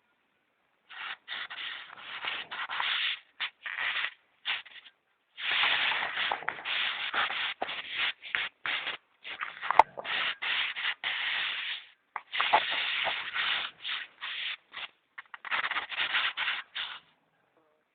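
Snoring: long, rasping breaths of about three to four seconds each, with short pauses between, and a single sharp click about ten seconds in.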